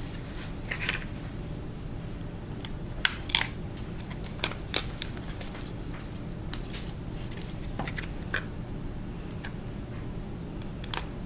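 Scattered small clicks and light taps from hands handling a small cardboard candy box and glue dots, over a steady low hum.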